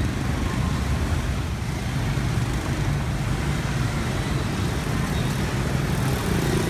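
Dense motor scooter and motorbike street traffic: many small engines running and passing together in a steady, unbroken mix of engine and road noise.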